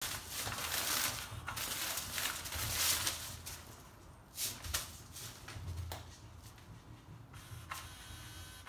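Rustling and scuffing of a kitten playing on a fabric play mat over artificial turf, in short hissy bursts with a few sharp clicks; the rustling is busiest in the first few seconds and thins out after that.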